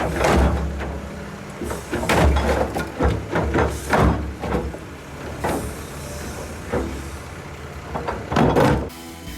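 Excavator and dump truck engines running with a low rumble, under a series of loud clanks and crashes as the excavator's bucket works and dumps its load into the dump truck's steel bed.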